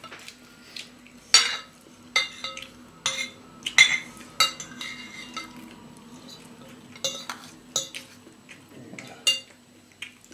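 Spoon and fork clinking and scraping against a ceramic bowl while eating, in irregular sharp clinks every second or so, over a faint steady hum.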